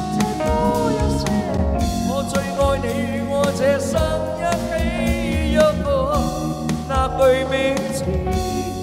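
A Chinese pop song being sung over instrumental accompaniment with drums. The singer's voice carries a wavering, sustained melody line.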